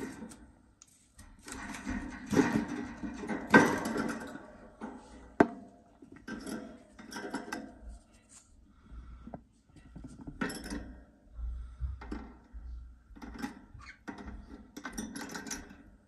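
A budgerigar moving about inside a wooden nest box: irregular bursts of scratching and rustling with a few sharp knocks, such as claws and beak on wood and nest material.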